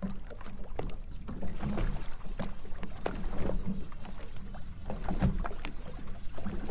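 Small waves lapping and slapping against the hull of a drifting center-console bay boat: irregular short knocks and splashes over a steady low rumble.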